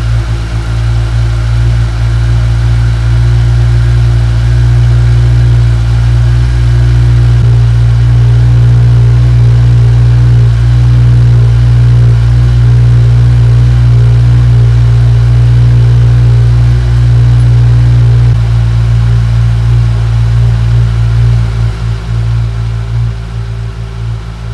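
2015 Kawasaki Z1000's inline-four running at a steady idle through its stock exhaust, without revving. It quietens somewhat near the end.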